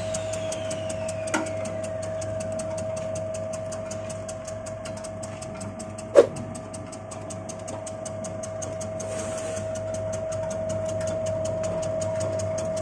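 Electric cassava chip-slicing machine running: a steady motor hum with rapid, even ticking as the spinning blade disc slices a cassava root pushed through the feed tube. A sharp knock about six seconds in, and a smaller one just after the start.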